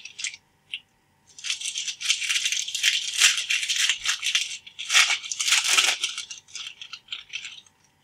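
Plastic trading-card pack wrapper crinkling and rustling as hands work it open, in a run of crackly bursts from about a second in until near the end.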